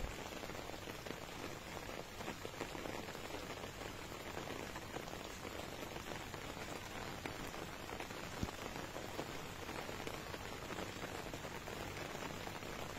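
Steady rain falling on open water and grass, an even hiss of many small drops, with one brief tap about eight seconds in.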